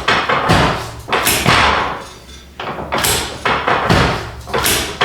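Chiropractic drop table's spring-loaded sections slamming down in a series of sharp thuds, several in a few seconds, as the chiropractor thrusts down on the patient's back.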